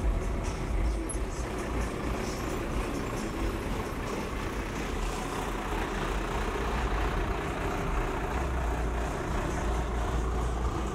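Lowered classic pickup trucks rolling slowly past at cruising pace, engines running with a steady low rumble. First a black Chevrolet OBS pickup, then a patina mid-1960s Ford F-100 crew cab.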